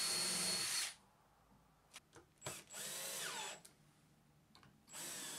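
Cordless drill/driver running in three bursts. The first, about a second long, drills into a hardwood runner; two shorter runs follow as screws are driven into it, and the motor's pitch sags during the middle one.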